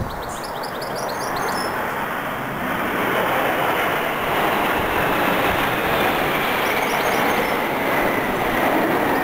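Formation of jet aircraft flying over, the broad roar of their engines building over the first few seconds and then holding steady and loud.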